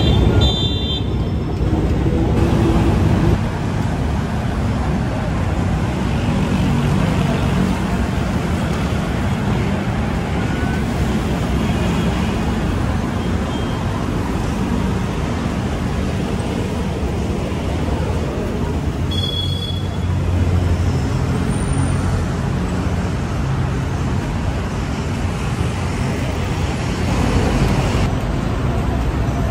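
Steady city road traffic: cars and motorcycles running along a multi-lane boulevard, a continuous rumble with no pauses.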